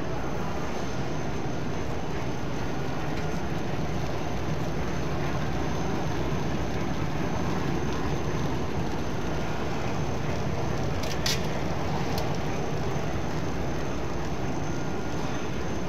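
Rotogravure printing machine running, a steady, even machine noise from the press units with a faint high whine above it. A short sharp click comes about eleven seconds in.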